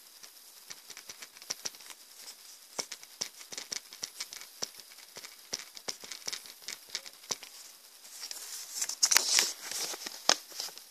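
Paper rustling and crinkling as fingers handle small slips of paper, with many small clicks and taps throughout. Near the end a folded sheet is opened out, with a louder burst of crinkling and a sharp click.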